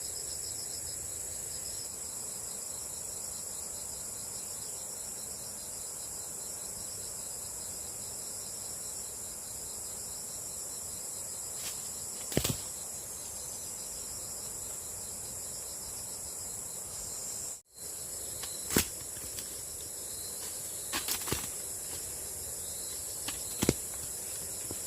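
Insects chirring outdoors: a steady high-pitched drone with a faster pulsing chirp just beneath it. A few sharp clicks or snaps come in the second half, and the sound drops out for an instant about two-thirds of the way through.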